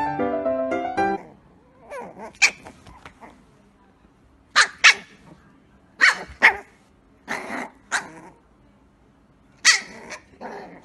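Small cream-coloured puppy giving about a dozen short, sharp yaps, mostly in quick pairs with pauses between. Piano music cuts off about a second in, before the yapping starts.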